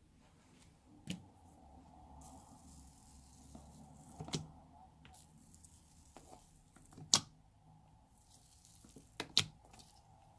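Sticky slime being squished and stretched by hand, with a soft sticky hiss and several sharp pops, the loudest about seven seconds in.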